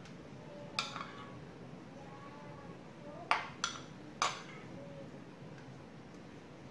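Metal spoon clinking against a dish: one sharp click about a second in, then three more close together a little past the middle.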